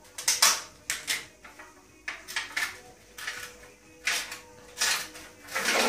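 A plastic butter tub being handled and its lid pulled off: a string of short plastic crackles and scrapes, about eight in all.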